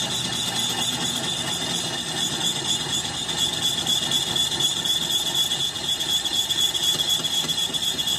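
Lathe turning a heavy-truck wheel hub, the cutting tool working the spinning metal with a steady high-pitched whine over the machine's running noise.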